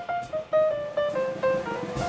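Background jazz music: a short run of single plucked notes stepping downward in pitch.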